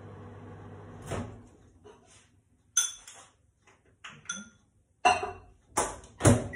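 Microwave oven running with a steady hum that cuts off with a click about a second in as its door is opened. A dish is shifted inside with a few light clinks and knocks, and the door shuts with a loud clunk near the end.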